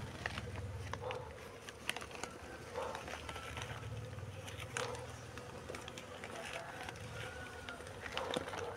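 A crowded honeybee colony buzzing steadily, with short crackling rustles of a plastic sheet as hands work through the bee-covered comb.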